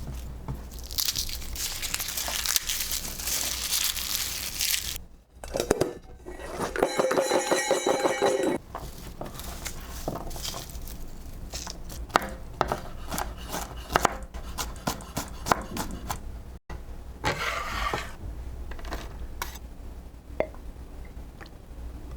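Kitchen handling sounds: a few seconds of crinkling and tearing, a short pitched scraping about seven seconds in, then scattered light clicks and knocks, over a steady low hum.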